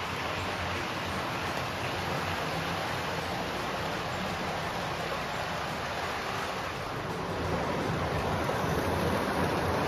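Model train running on its track: the steady running noise of the locomotive's motor and wheels on the rails, growing louder over the last few seconds.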